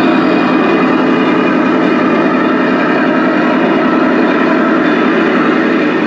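1/16-scale remote-control Leopard 2A6 tank driving and turning on a wooden floor, giving a steady, loud engine-like drone from its drive and sound system.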